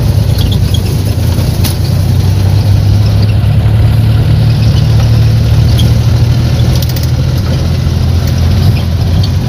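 Suzuki multicab's F6A three-cylinder engine running steadily while driving, heard from inside the cab, with a few sharp knocks and rattles from the body over a rough dirt track.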